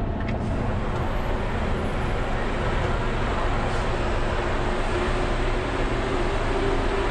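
Diesel truck engine running steadily as the truck starts to roll off, heard from inside the cab.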